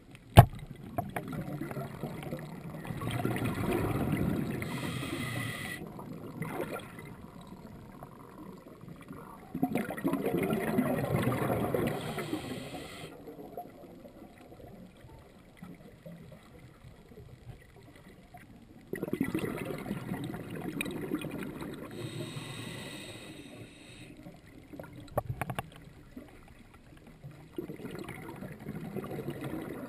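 Scuba diver's regulator underwater: bubbling exhalations of about three seconds each, four times, with quieter stretches of inhaling between. There is one sharp click just after the start.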